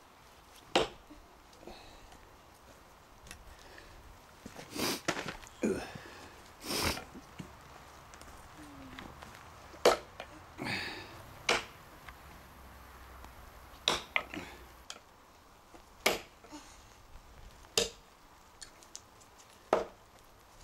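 Cold Steel Trail Hawk tomahawk chopping into a hard, seasoned elm log: about a dozen sharp chops, spaced irregularly a second or more apart.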